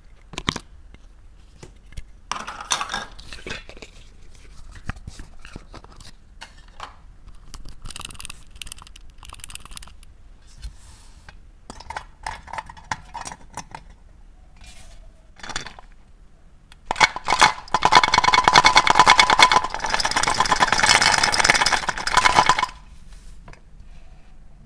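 Plastic toy figures and toy food clicking and knocking as they are handled and set into a metal muffin tin. Near the end the metal tin scrapes loudly across the surface for about five seconds, with a steady metallic ring, and then stops abruptly.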